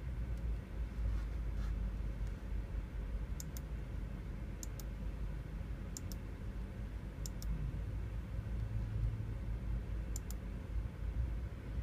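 Computer mouse button clicked five times, each click a sharp press-and-release pair, over a steady low hum.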